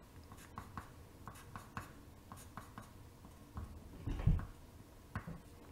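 Pencil writing on paper: faint, quick scratchy strokes and small taps as letters and dots are drawn. A brief low, louder sound comes about four seconds in.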